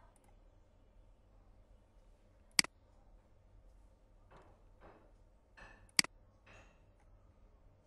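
Two sharp clicks of a computer mouse button, about three and a half seconds apart, over a faint steady low hum.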